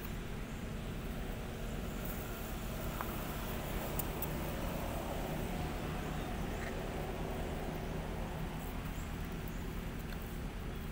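Steady outdoor background noise with a low, even hum and a few faint clicks.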